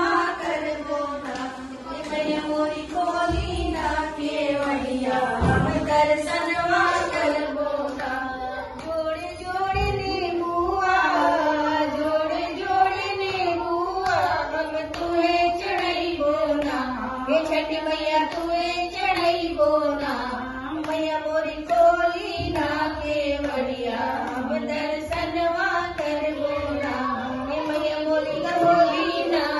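Several women singing a Chhath folk song together in unison, a slow wavering melody that runs on without pause.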